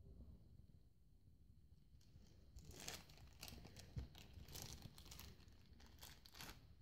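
Faint crinkling and tearing of a shiny pink plastic toy wrapper being opened by hand, in short scattered rustles from about two and a half seconds in, with a light knock about four seconds in.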